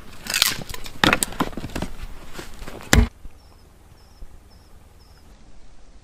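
A quick series of sharp cracks and crunches, ending with a hard knock about three seconds in. After that it goes quiet except for four faint, short, high chirps.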